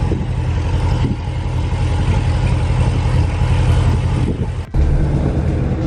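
C7 Corvette Z06's supercharged LT4 V8 idling steadily through newly fitted Kooks headers and a 3-inch X-pipe, heard from inside the cabin. The sound drops out briefly about three-quarters of the way through, then the same idle carries on.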